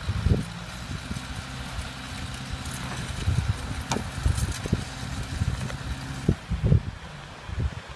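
Vehicle engine running steadily at a low hum, under irregular low thumps.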